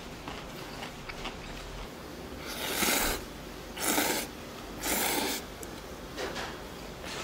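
A person slurping noodles during a meal: three loud slurps, each about half a second long and about a second apart, with faint clicks of utensils before and after.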